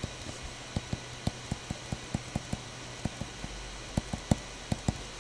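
Stylus clicking and tapping on a tablet screen during handwriting: an irregular quick series of short clicks, about four or five a second, over a faint steady hum.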